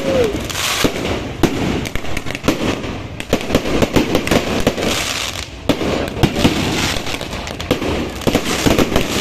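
Aerial fireworks and firecrackers going off in rapid, continuous succession: dense crackling packed with many sharp bangs.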